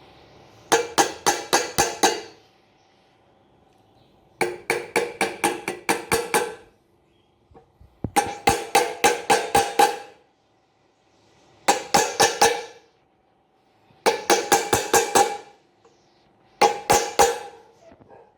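Six bursts of quick light taps, about five a second, driving a rubber shaft seal down into its seat over the drum bearing of an Electrolux LTE12 washing machine; each tap rings briefly.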